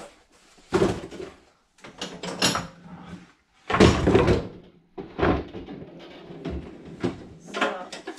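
Wooden cutting boards knocking and clattering as they are lifted out of and shuffled about in a kitchen cupboard. There are several loud knocks, the loudest about four seconds in, with rustling handling noise between them.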